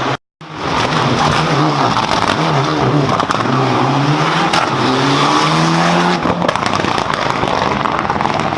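Rally car engine revving hard and running up through the gears, its pitch climbing and then dropping at each change, over loud tyre and road noise. The sound cuts out for a moment just after the start.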